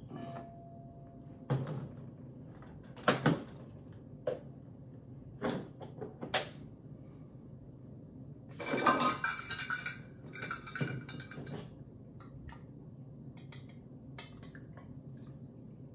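Kitchenware being handled: scattered knocks and clinks of a metal measuring cup, a plastic pitcher and a steel pot being picked up and set down, with a busier stretch of clatter lasting a few seconds about halfway through.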